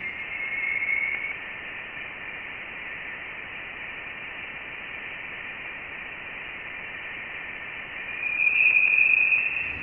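Radio-like static hiss with a thin, steady high whistle, louder about a second in and again near the end. It is presented as the signal picked up by the Voyager 1 space probe.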